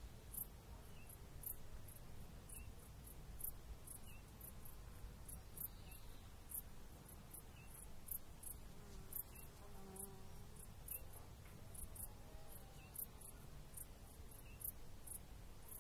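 Faint, very high-pitched insect-like chirps repeating about two or three times a second, over a low rumble of wind.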